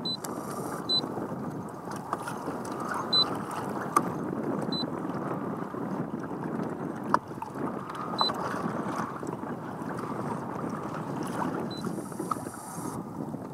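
Small waves lapping and sloshing against the hull of a small boat, with light wind on the microphone. There are a few soft knocks and a handful of faint short high beeps.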